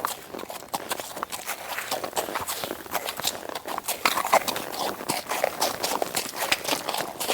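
Horse hooves clip-clopping, a run of uneven knocks several times a second.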